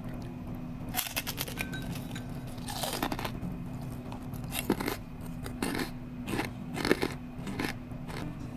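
Crispy fried fish skin crackling and crunching as it is snapped and bitten, in a string of sharp, separate crackles over a steady low hum.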